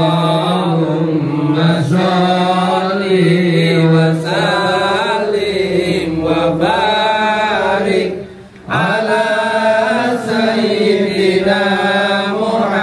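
Voices chanting devotional sholawat or dzikir in long melodic lines, with held, wavering notes and a short breath pause a little past halfway.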